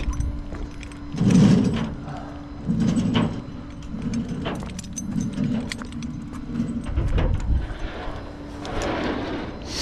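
Tow-truck rigging clanking and rattling as the hooks and chains are handled, with repeated short metallic knocks and jingles. The tow truck's engine hums steadily underneath.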